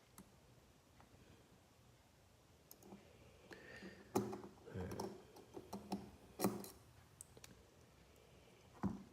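Small metal parts of a Bestech Reticulan folding knife clicking and tapping against each other and the tools as the knife is put back together: a scatter of light, irregular clicks and knocks from about three seconds in.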